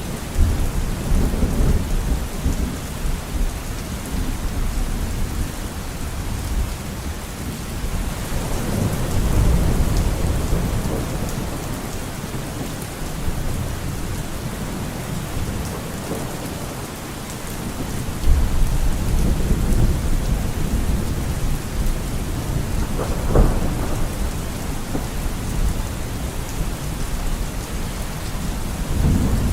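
Steady rain hissing through a thunderstorm, with thunder rumbling in several rolling swells and one sharp crack about two-thirds of the way through.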